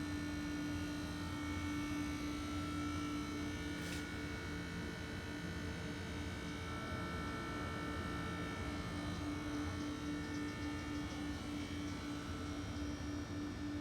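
Boiler-room water-heating equipment running with a steady electric hum: one strong steady tone with fainter higher tones over a low rumble. A faint click about four seconds in.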